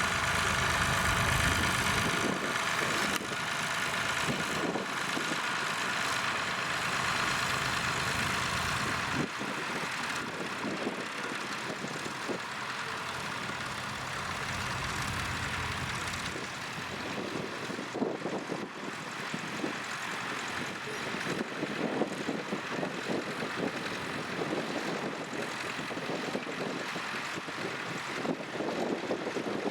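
An engine running steadily. Its low rumble drops away about nine seconds in, leaving a quieter, uneven engine sound.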